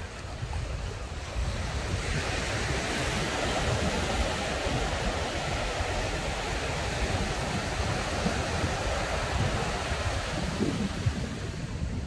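Ocean surf washing onto the beach, swelling about two seconds in, with gusty wind buffeting the microphone.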